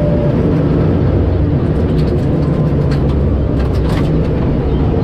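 Rally car engine running hard at speed, heard from inside the cabin, with road noise from the gravel. Scattered sharp clicks of gravel striking the car's underside come between about two and four seconds in.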